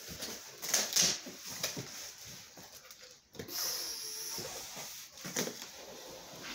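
Cardboard rustling and scraping as a shipping box's flaps are handled and the boxed air fryer inside is slid out: a run of short rustles, then a steadier scrape about three and a half seconds in.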